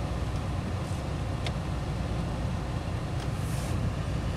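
Car engine idling steadily, heard from inside the cabin as a low rumble, with a faint tick about a second and a half in.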